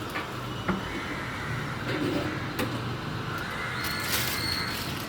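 A few sharp clicks, then a sliding scrape with a short squeak near the end, from a new Whirlpool top-load washing machine being handled during unpacking.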